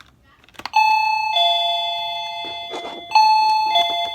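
A click, then a wireless doorbell receiver chimes a two-note ding-dong twice, a higher note followed by a lower one, each ringing on and slowly fading. The receiver is set to its low volume setting.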